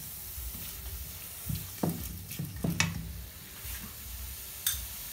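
Chicken liver and chopped garlic sizzling in a hot frying pan while a spatula stirs them, with a few short scrapes and taps against the pan.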